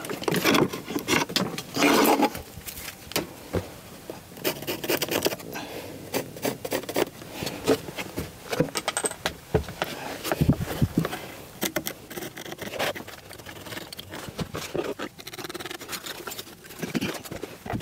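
Scattered knocks, taps and scrapes as a person shifts about on hands and knees on wooden attic boards and marks the studs by hand.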